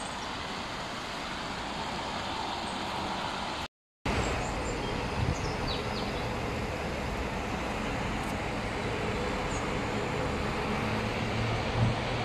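Steady outdoor street ambience with road traffic running past, under a low engine hum and a few faint high chirps. About four seconds in it drops out to silence for a moment, then resumes.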